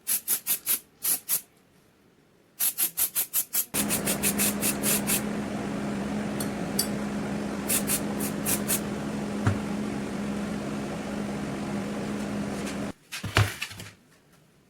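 Quick, evenly spaced scraping or clicking strokes, about six a second, in two runs. Then a small motor starts and runs steadily with a low hum for about nine seconds before cutting off, followed by a few clicks.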